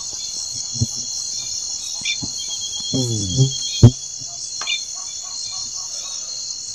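Steady chorus of insects, a dense high-pitched trill, with a few sharp knocks, the loudest about four seconds in, and a brief voice just before it.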